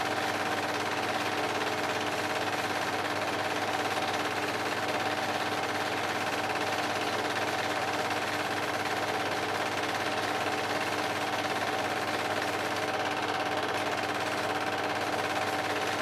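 Film projector running: a steady mechanical clatter with an even hum, unchanging throughout.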